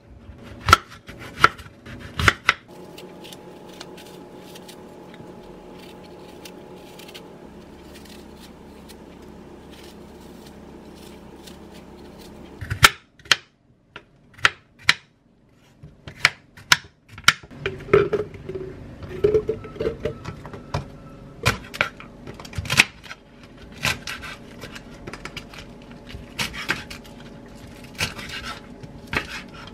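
Kitchen knife cutting fruit and vegetables on a wooden chopping board: sharp taps of the blade on the board, clustered in the first couple of seconds and coming thick and fast through the second half. In between, a long stretch holds only a low steady hum.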